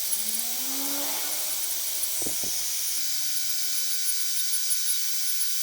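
A small high-speed power tool running steadily with a high hiss, with two faint knocks a little past two seconds in.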